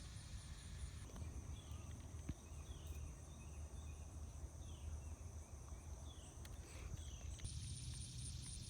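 Faint outdoor ambience: insects droning steadily, a few short falling chirps, and a low rumble that sounds like wind on the microphone.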